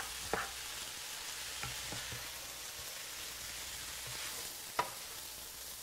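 Ground beef, bean and cheese mixture sizzling steadily in a hot electric skillet as it is stirred to melt the cheese in. Two sharp clicks of the stirring utensil against the pan stand out, one just after the start and a louder one near the end.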